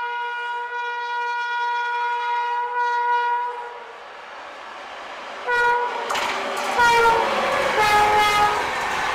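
WAP-7 electric locomotive's air horn sounding one long blast, then several short blasts as the train comes close. From about six seconds in, the loud rush and clatter of the locomotive and LHB coaches passing at speed joins in, and the last horn blasts are lower in pitch as it goes by.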